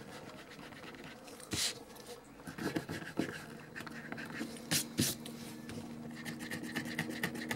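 A stick eraser rubbing on drawing paper in a few brief scrubbing strokes.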